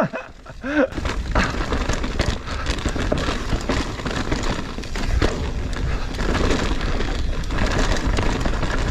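Mountain bike riding down a rough, wet trail as heard from a GoPro action camera: steady wind rumble on the microphone, with tyres running over mud and roots and many short knocks and rattles from the bike.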